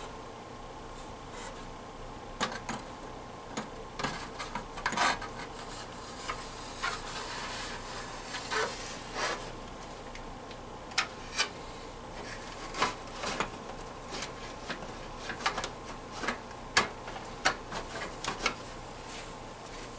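The plastic cabinet of a Sony FH-B50CD stereo receiver being slid down over its metal chassis and pressed into place: scraping and rubbing with a long series of sharp clicks and knocks.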